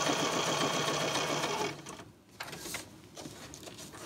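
Computerized sewing machine stitching a seam at steady speed, stopping a little under two seconds in. After it stops come a few faint clicks and rustles.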